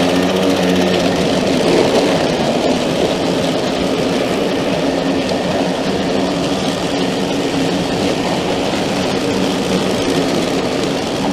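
Two walk-behind mulching lawn mowers, a Grin PM53A and an AS Motor 510 ProClip, running together as they cut grass side by side: a steady, loud motor hum with the hiss of the blades in the grass.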